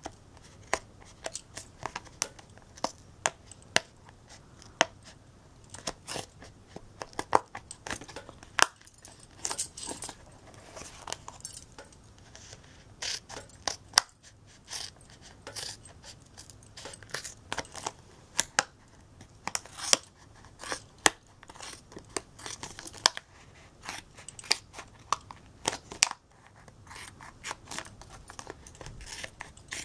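Scissors cutting around the rim of a plastic tub lid: many irregular short snips and crunching cuts through the plastic, scattered unevenly.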